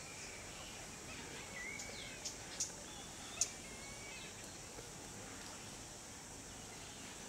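Natural outdoor ambience: a steady high insect drone, with birds calling. A few whistled, gliding bird calls come between about one and four and a half seconds in, and three short, sharp sounds come between about two and three and a half seconds in, the last the loudest.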